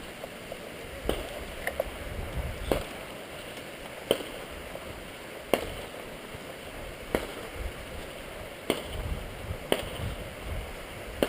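Footsteps of someone walking, a sharp crunch about every one and a half seconds, over a low irregular rumble.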